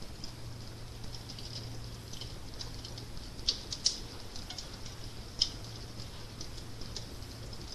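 Crackling fire: scattered small pops and snaps over a steady low hum, with three louder pops near the middle.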